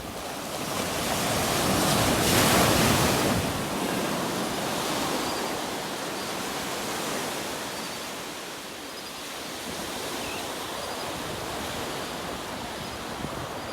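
Sea waves breaking on a beach, one wave swelling to its loudest about two to three seconds in and then fading into a steady wash of surf.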